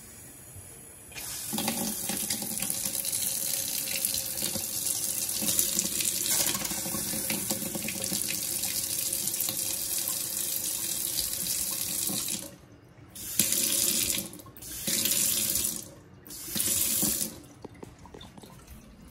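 Water from a newly installed Crea touch-on kitchen faucet's pull-out spray head pouring into a stainless steel sink. It comes on about a second in, runs steadily for about eleven seconds, then stops and is turned on and off again in three short bursts.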